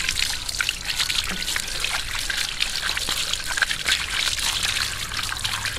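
Water running from a garden hose and splashing over a plastic toy truck held in the hand as it is rinsed clean. The splashing is steady, with many small spatters.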